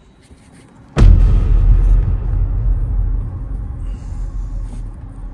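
A sudden loud boom about a second in, followed by a deep rumble that slowly fades: a cinematic impact sound effect.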